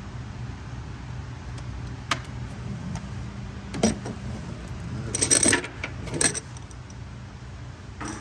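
Loose metal parts clinking and jangling as they are handled: single clinks about two and four seconds in, a longer jangle just past five seconds, and another clink a little after six, over a steady low hum.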